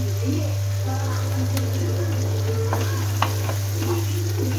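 Onions, tomatoes and chillies sizzling in oil in a non-stick wok as a wooden spatula stirs and scrapes them, with two sharp taps of the spatula on the pan, about a second and a half and three seconds in. A steady low hum runs underneath.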